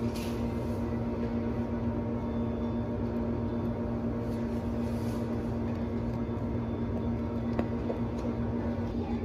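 Steady machine hum with a strong, even low tone, as of running café equipment. A couple of faint clicks come near the end.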